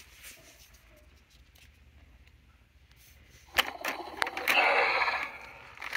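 A quiet stretch, then about three and a half seconds in a click followed by a loud electronic roar from a toy dinosaur's speaker. The roar lasts about a second and a half and then fades.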